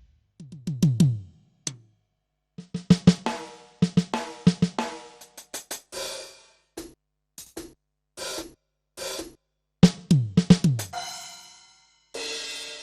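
Electronic drum kit module sounds being played pad by pad: tom fills whose tones drop in pitch as they die away, a quick run of drum hits, single snare and cymbal strikes, and a cymbal wash near the end that cuts off sharply.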